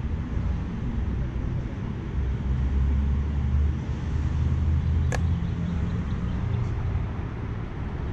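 Low, steady rumble of a motor vehicle running, with one sharp click about five seconds in.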